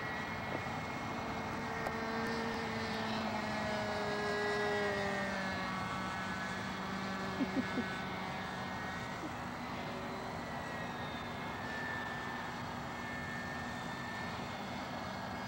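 Steady drone of an aircraft engine, its several tones slowly drifting in pitch, with three quick clicks about halfway through.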